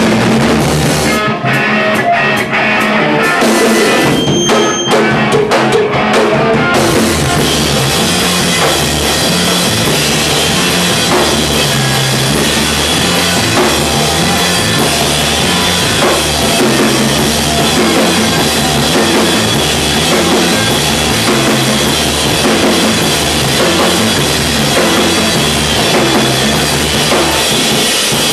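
Live rock band playing loud, with a drum kit and distorted electric guitars. The band plays clipped stop-start hits until about seven seconds in, then plays on at full tilt.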